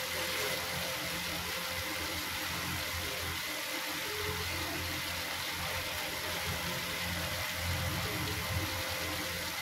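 Steady hum and hiss of an induction cooktop's cooling fan running, with a spatula stirring thick gravy in a non-stick pan.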